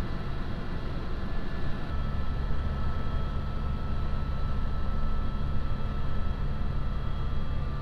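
Helicopter in flight heard from inside the cabin: a steady low rotor and engine drone with a thin, steady high whine above it.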